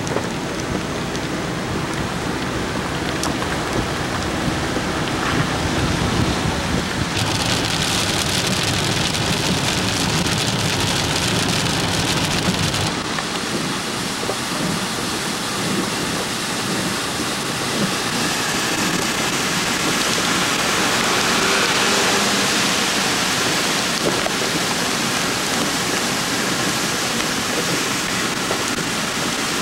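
Steady hiss of tropical-storm rain and rushing floodwater. The noise turns brighter about seven seconds in and loses its low rumble about thirteen seconds in.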